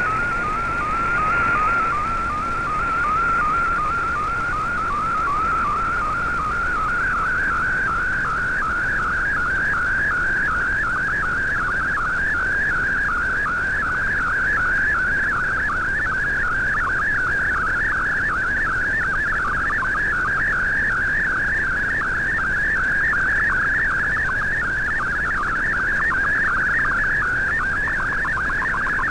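Shortwave MFSK digital picture signal coming through the receiver's speaker: a high, whistling data tone, nearly steady for the first couple of seconds, then warbling rapidly up and down in a fast repeating pattern over faint hiss. The shifting pitch carries the brightness of a colour image being sent line by line.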